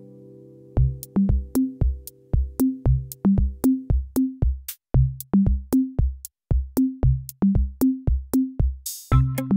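Background music: a held chord fades out, then a drum-machine beat with deep kick drums comes in under a second in, filling out with a cymbal splash and a fuller pattern near the end.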